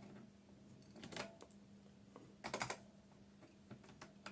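Keystrokes on a computer keyboard as commands are typed in: a few key presses about a second in, a quick run of them about two and a half seconds in, then single taps near the end, over a faint steady hum.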